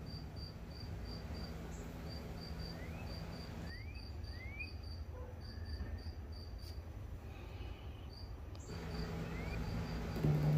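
Outdoor summer ambience dominated by an insect chirping in a steady, high-pitched pulse of about five chirps a second, with a few short rising chirps over it.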